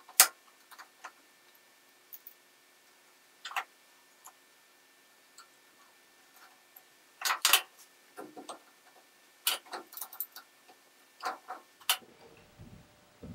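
Metal lathe change gears and a screwdriver being handled while a gear is fitted onto the lead screw: scattered sharp metallic clicks and clinks, a loud one at the start and small clusters every few seconds after.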